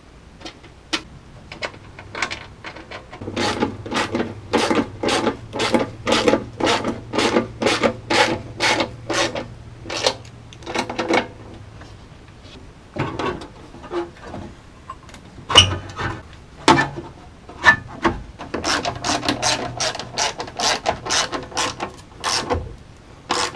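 Hand ratchet wrench clicking in quick, even strokes, about two to three a second, as it runs down the bolts holding the lower muffler of a UTV exhaust. There are two spells of ratcheting with scattered knocks and a pause between them.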